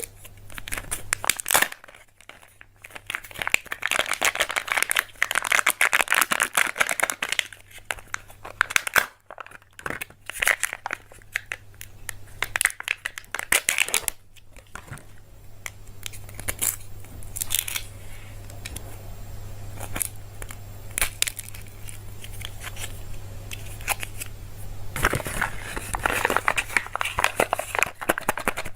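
Plastic wrappers of surprise eggs crinkling and tearing as they are unwrapped by hand, in bursts with short pauses and a quieter, sparser stretch in the middle. A low steady hum runs underneath.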